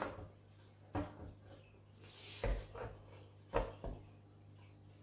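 A few light knocks and a short scrape as a wall clock is handled and shifted against a wall, over a low steady hum.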